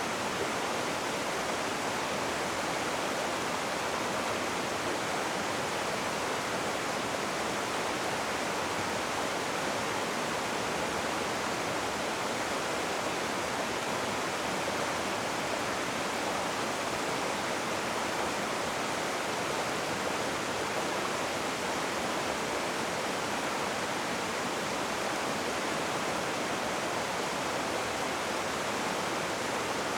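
Rushing river water: a steady, even hiss of fast-flowing water with no change.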